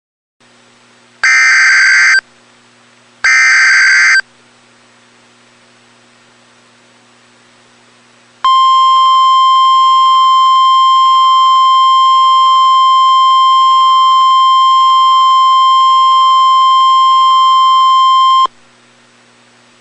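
Emergency Alert System SAME header: two screeching digital data bursts about a second each, then a single steady alarm tone (the NOAA Weather Radio 1050 Hz warning tone) held for about ten seconds, with a low hum between them. It announces a tornado warning.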